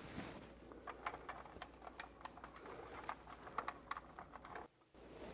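Faint, irregular light clicks and taps of plastic as a smoke alarm is handled and snapped onto its mounting bracket.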